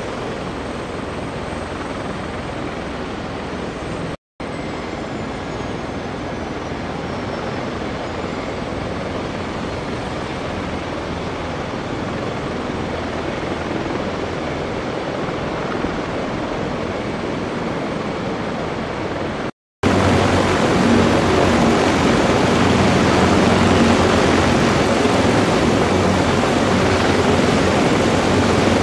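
CH-53E Super Stallion helicopters running on the flight line: a steady turbine and rotor noise, broken twice by brief cuts. After the second cut, a little before the end, it is louder, with a low steady tone underneath, as one CH-53E turns its rotors close by.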